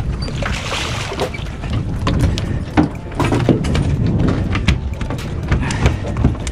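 Steady low rumble of wind and water around a small fishing boat, with scattered sharp knocks and taps on the boat.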